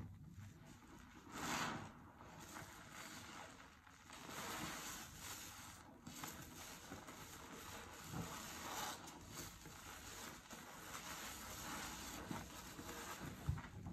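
Hands squeezing a soap-soaked sponge in a sink of thick suds: wet squishing of foam and water, swelling with each squeeze every few seconds.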